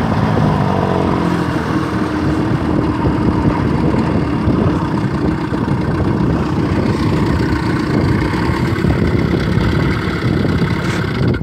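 1978 Mercury 20 hp Thunderbolt two-stroke outboard motor running: its engine speed falls over the first couple of seconds, then it settles to a steady idle.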